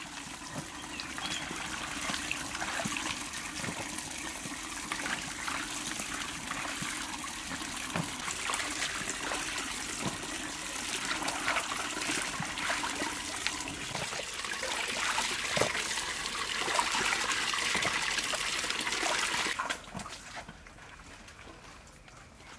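Tap water pouring into a metal basin while eggplants are washed by hand in it, with splashing and small knocks of the vegetables. The running water stops about twenty seconds in, leaving quieter, scattered handling sounds.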